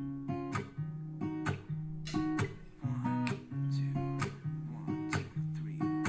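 Acoustic guitar music played back through a JBL Charge 3 portable Bluetooth speaker: plucked and strummed notes, a new one about every half second, over a bass line. The speaker is captured with a binaural microphone.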